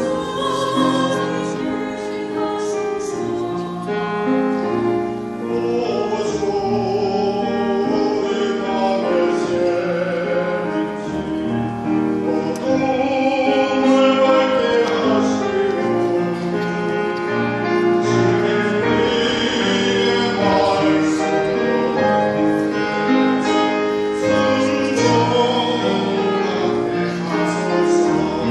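Hymn singing with vibrato on the held notes, over instrumental accompaniment.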